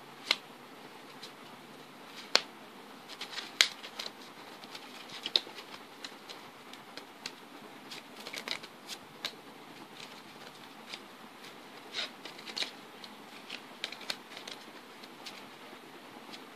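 Playing cards being handled and laid down on a rug: irregular sharp clicks and taps over a steady hiss, the loudest in the first four seconds.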